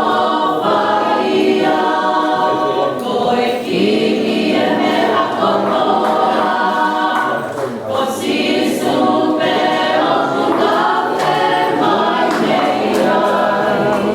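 A vocal group singing gospel in harmony, in long sustained phrases.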